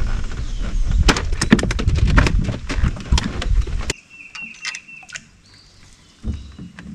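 Knocking and clicking of gear being handled in a small fishing boat, a quick irregular run of sharp clicks over a low rumble. About four seconds in it drops to a quiet stretch with a few faint clicks and a short high chirp, and a low steady hum sets in near the end.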